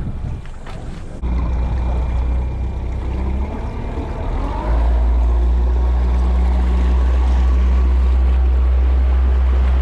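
Johnson 70 outboard motor running with the boat under way. Its steady low drone comes in suddenly about a second in and steps up louder about halfway through as the throttle opens.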